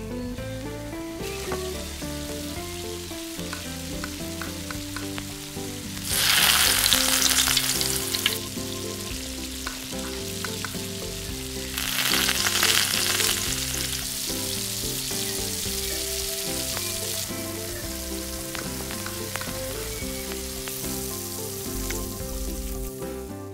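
Food sizzling as it fries in hot oil, with two louder surges of sizzling about six and twelve seconds in, each lasting roughly two seconds, before it settles back to a steady sizzle.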